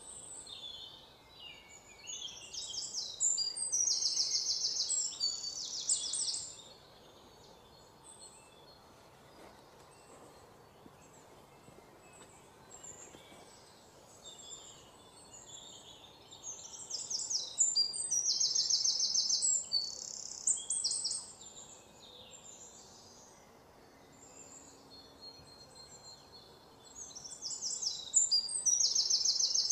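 Songbirds chirping and trilling, high-pitched, in three bouts of a few seconds each with quieter stretches between.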